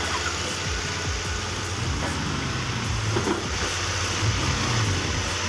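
Small dump truck's engine running steadily with a low hum.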